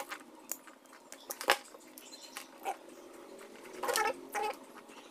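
A dog barking a few times in the background, the strongest barks about four seconds in, with a few sharp clicks in between.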